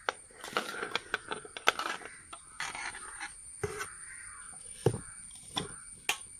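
Chunks of raw cassava knocking and clattering as they are tipped and pushed by hand from a perforated aluminium steamer plate into an aluminium pressure-cooker pot, with scattered metallic knocks of the vessels.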